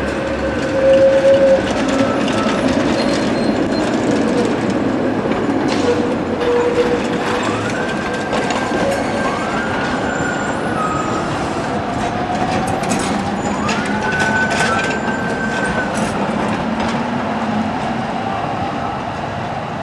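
Tatra trams running along a city street: wheels rolling and clicking over the rails, with electric whines that rise and then hold steady as the trams pick up speed, over road traffic.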